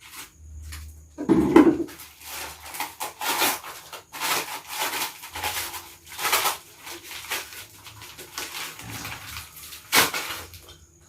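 Hands handling and rubbing unboxed metal motorcycle parts and their packaging: irregular scraping, rustling and light knocks, with a louder short sound about a second and a half in and a sharp click near the end.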